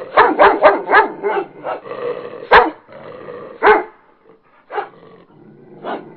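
Dog barking: a quick run of barks in the first second, then single barks about a second apart, growing fainter toward the end.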